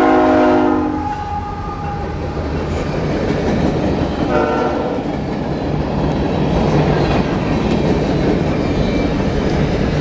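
A CSX freight locomotive's multi-tone horn chord ends about a second in. After it comes the steady loud rumble and clatter of the freight train's cars rolling past close by.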